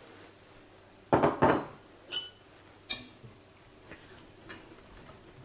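Kitchen utensils knocking and clinking against a stainless steel saucepan as cream is added to a sauce and whisked in. Two heavier knocks a little over a second in, then three sharp, ringing metallic clinks.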